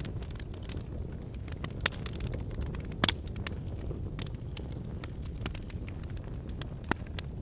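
Wood fire burning in a fireplace: a steady low rumble of flames with irregular crackles and snaps, the loudest pop about three seconds in.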